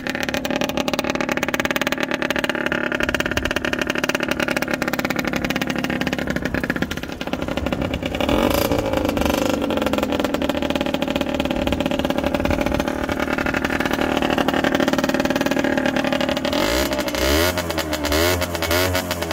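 Aprilia RX50's 50cc two-stroke single-cylinder engine running shortly after a cold start, ticking over with a steady crackle. About eight seconds in, the engine pitch sweeps with a short rev. Near the end, the throttle is blipped several times in quick succession.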